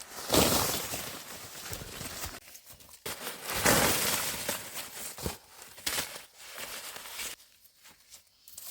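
Dry corn leaves and husks rustling and crackling as ears of corn are picked by hand. There are two louder bouts, one just after the start and one about three and a half seconds in.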